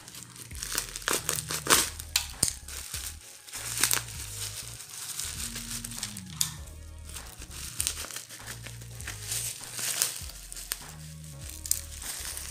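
Black plastic wrapping and bubble wrap crinkling and rustling as hands pull a parcel open, over background music with a bass line.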